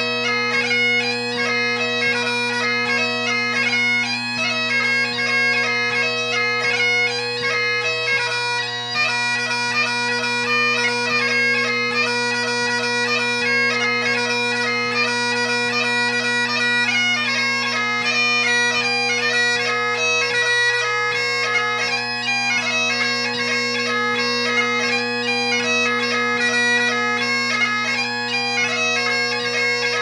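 Great Highland bagpipe played solo: the drones hold a steady low tone under the chanter's quick melody, broken up by short grace notes.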